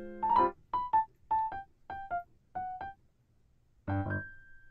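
Background piano music: a light melody of short notes in pairs, about one pair every half second, ending on a chord about four seconds in that leaves one note ringing.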